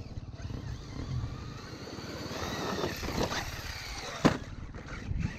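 Brushless electric motor of a Traxxas E-Revo 2.0 RC truck whining as it speeds up, its pitch rising over a second or so midway through, with a single sharp impact about four seconds in.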